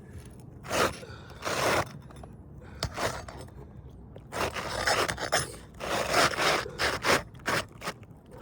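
Architectural asphalt shingle scraping against the shingles around it in a series of irregular strokes as it is slid up under the course above.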